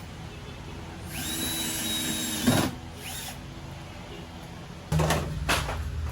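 Power drill or driver running steadily with a whine for about a second and a half, stopping with a click, then a brief second burst. Near the end a louder low rumble with knocks sets in.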